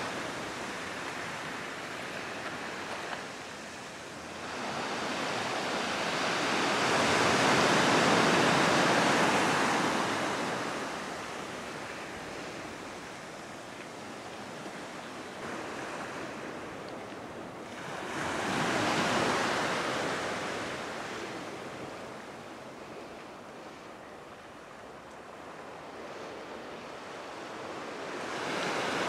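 Ocean surf washing onto the shore: three swells of rushing water about ten seconds apart, the first the loudest, with a steady hiss of water between them.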